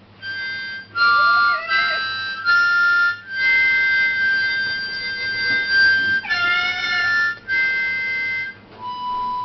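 Harmonica played in a string of held chords with short breaks between them, one held for about three seconds in the middle. A cat yowls along over the chords, a rising wavering cry about a second in and another near seven seconds.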